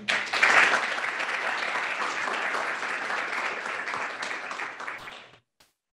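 Audience applauding, starting strongly and gradually dying away until it stops about five seconds in.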